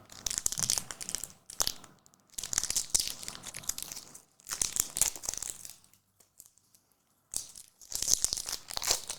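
A trading-card pack wrapper being torn open and crinkled, in several crisp stretches with a short quiet gap past the middle.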